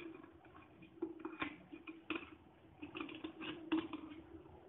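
Light metal clinks and taps from a stainless steel mould stand being set down and settled inside an aluminium pressure cooker, a few scattered knocks, over a faint steady hum.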